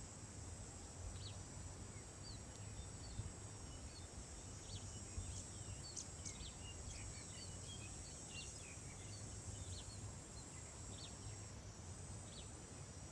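Faint rural ambience: a steady high insect drone, with many short bird chirps scattered over it, thickest in the middle.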